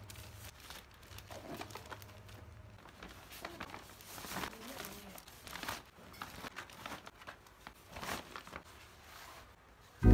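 Packaging crinkling and rustling in irregular bursts as things are handled.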